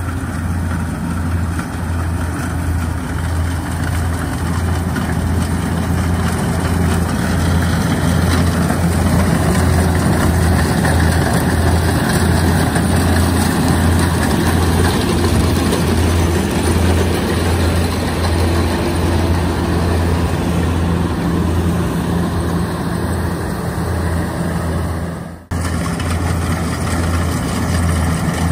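Kubota combine harvester's diesel engine running steadily under load as it cuts lodged rice, a continuous heavy drone with a low pulse. It pulls through the flattened crop without bogging down. There is one sudden brief drop in the sound about 25 seconds in.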